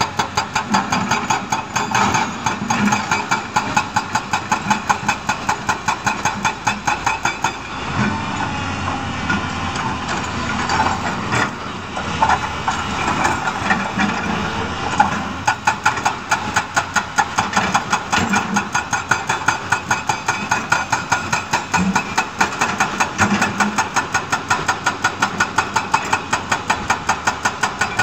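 Hyundai 210 hydraulic excavator's diesel engine running while the machine digs, with a regular knocking pulse about three times a second. The pulses fade for several seconds in the middle and come back.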